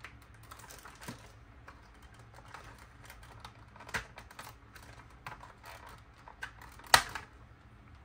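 Hard plastic toy parts being handled and fitted together, giving scattered light clicks and taps, with one sharper knock about seven seconds in.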